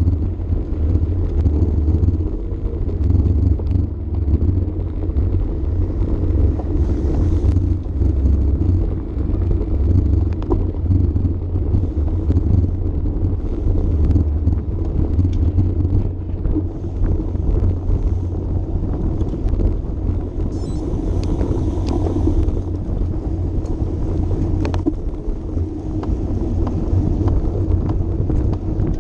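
Wind buffeting the microphone of a camera on a moving road bike, a steady low rumble, mixed with the tyres rolling on the path and a few light ticks.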